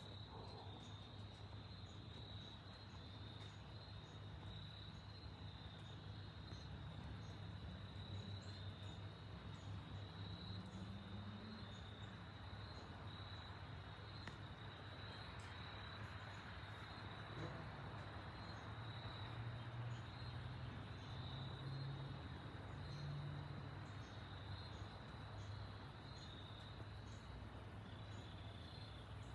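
Faint, steady far-off rumble of a Boeing 777 jet airliner passing high overhead at cruising altitude, swelling slightly around the middle, under a steady high chirping of insects.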